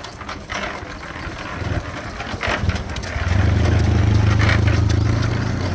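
A motor or engine running with a steady low hum. It comes in about a second and a half in and gets louder at about three seconds. Before it there are a few light knocks and scrapes.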